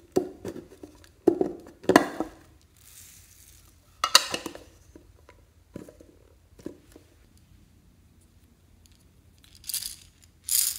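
Hard plastic lip-shaped case handled in the hands, giving about half a dozen irregular knocks and crinkly plastic clatters. Near the end, small plastic beads rattle in a little plastic cup, twice.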